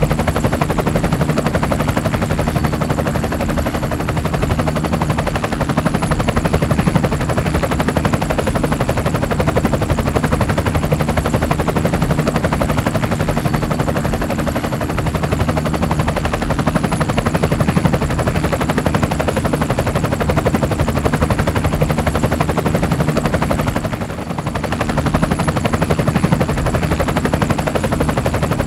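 Helicopter running steadily, its rotor blades making a rapid, continuous chop over a steady engine hum, with a brief drop in level about three-quarters of the way through.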